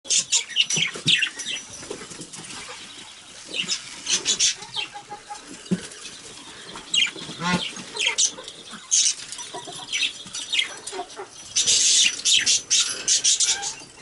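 Pet budgies air bathing: irregular flurries of wing flapping as they beat their wings in a fine mist, mixed with short chirps and chatter.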